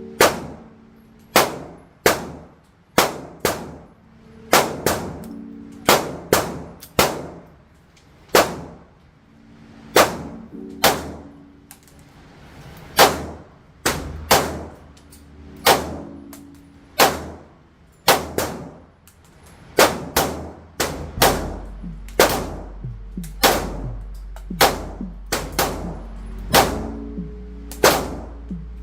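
Sarsilmaz SAR 2000 pistol fired in a long string of single shots, roughly one a second with an uneven pace, each crack followed by a short ringing echo from the range.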